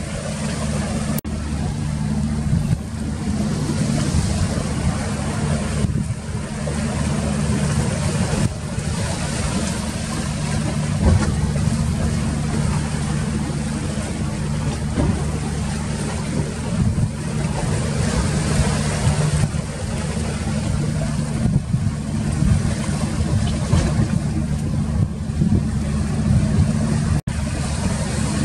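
An engine running steadily as a low drone, with a steady rushing noise over it.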